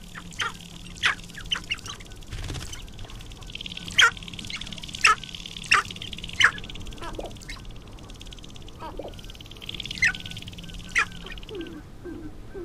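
Male sharp-tailed grouse displaying on a lek: the rapid rattling drum of dancing males comes in three spells, cut through by about a dozen loud, sharp calls that sweep downward. Near the end come a few short low notes.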